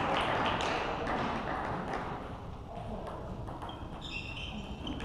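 Hall ambience between rallies in a table tennis match: background voices and scattered taps of table tennis balls bouncing.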